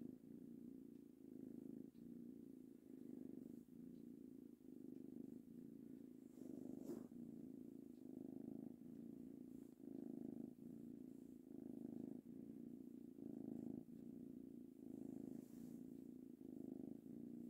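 Three-month-old ginger kitten purring softly while being petted, the purr swelling and easing with each breath in and out, a little more than once a second.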